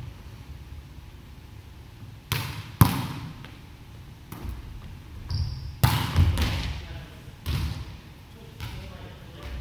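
Volleyball being struck by hand and bouncing on a wooden gym floor: several sharp smacks with a hall echo, the loudest about three seconds in.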